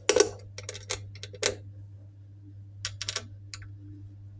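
Small allen screws clicking and tapping against the polished alloy timing case of a Norton Commando engine as they are set into their holes, in three short clusters of sharp metallic clicks.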